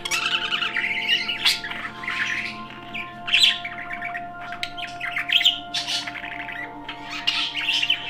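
Budgerigars chattering in bursts of quick warbling, broken by a few sharper squawks.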